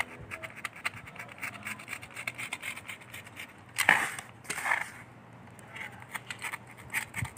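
Utility knife blade scoring and slicing through corrugated cardboard: a run of short scratchy ticks, with two louder rasping cuts a little past halfway.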